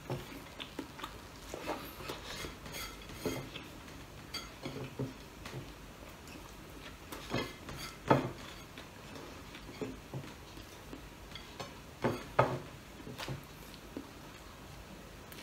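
Eating by hand from a plate: fingers pressing and scraping rice and food against the plate, with scattered light clicks and taps, two louder ones about eight and twelve seconds in.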